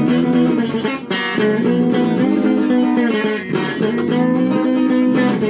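Electric guitar playing a blues accompaniment between sung lines: held chords that change about once a second.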